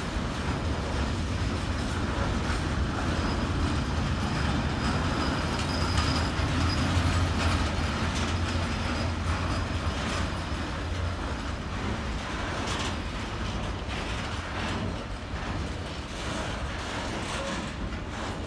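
A train running past with a steady low rumble and wheel noise. Scattered clicks come in during the second half, and the sound eases slightly toward the end.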